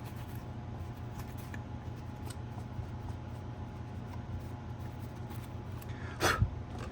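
Small handling sounds: a plastic side-mirror cover and housing rubbing and ticking as the parts are fitted together. A steady low hum runs underneath, and there is one louder knock about six seconds in.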